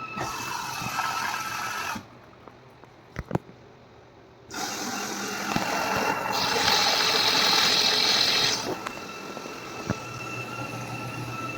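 Washing machine running with a steady high-pitched motor whine. The sound drops away for a couple of seconds with a few clicks, then comes back with a louder rushing stretch before settling.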